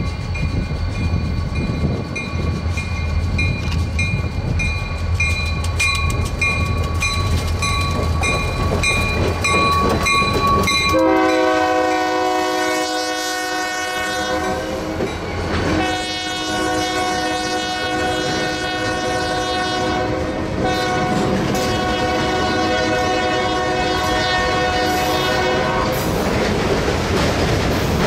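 EMD SD40-2 diesel locomotive going by with its engine rumbling and a bell ringing in a steady rhythm. About eleven seconds in, the train's air horn sounds three long blasts, heard from up the track, while the freight cars roll past with a steady clickety-clack.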